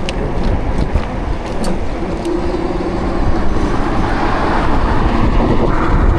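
Wind and road noise from a moving motorcycle in traffic, a steady low rumble with a few faint ticks, swelling louder for a couple of seconds past the middle.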